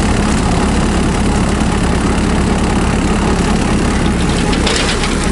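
Kubota B2650 tractor's diesel engine running steadily, with a hissier, rougher noise joining about four seconds in.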